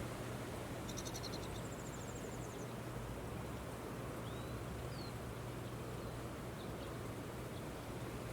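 Steady wind noise with a low hum underneath. About a second in come a few high chirps and a short rapid trill from a small animal, with a couple of brief whistled notes a few seconds later.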